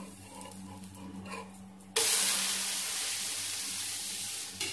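A wheat-flour ghavne flipped onto a hot, oiled flat pan: about two seconds in, a sudden loud sizzle starts and slowly fades. A low steady hum runs underneath, and there is a short knock near the end.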